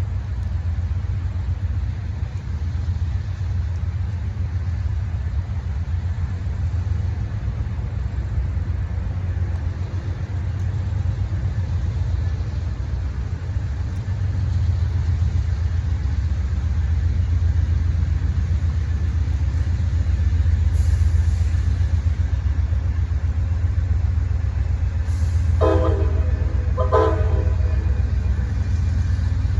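Amtrak Auto Train's diesel locomotives running with a steady low rumble that grows louder about halfway through as the train gets under way. Near the end the locomotive horn sounds two short blasts.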